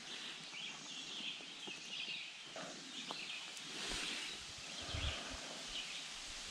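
Footsteps on a leaf-littered forest trail, with birds singing in the background.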